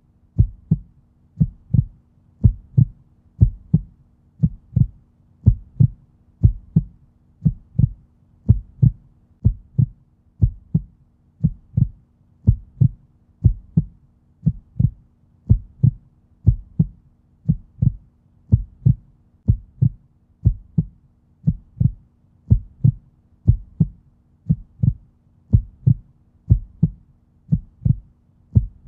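Heartbeat sound effect: a steady, regular beat of low thumps over a faint, steady low hum.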